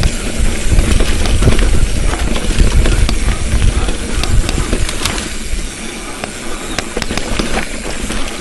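Wind buffeting the microphone and a bicycle rolling over a rough trail, with frequent sharp clicks and rattles. The low wind rumble eases about five and a half seconds in.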